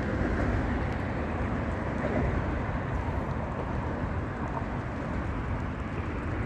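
Steady low rumble of a car on the move: engine and road noise with no change in pace.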